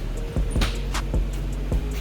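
Music with a deep bass line and a steady drum beat.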